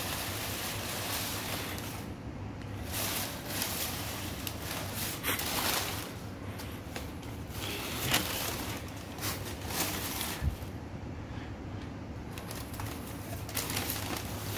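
Crumpled brown packing paper crinkling and rustling in irregular bursts as a cat moves about in it, over a steady low hum.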